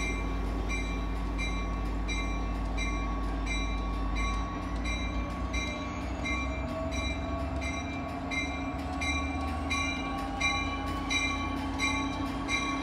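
Hartford Line push-pull diesel train running as it pulls slowly into the station, with a bell ringing steadily about three times a second. A faint whine rises slowly in pitch in the second half.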